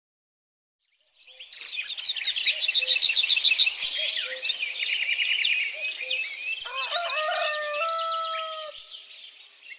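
Small birds chirping and twittering, fading in after about a second, with a rooster crowing once midway for about two seconds.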